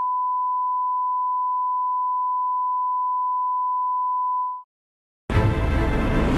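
Steady 1 kHz reference test tone of the colour-bar line-up, one unbroken beep that stops about four and a half seconds in. After a brief silence, loud music starts abruptly near the end.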